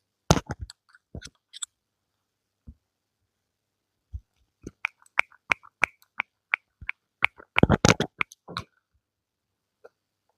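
Sharp clicks and taps in short clusters, with a run of evenly spaced clicks about three a second in the middle and a dense flurry a little later.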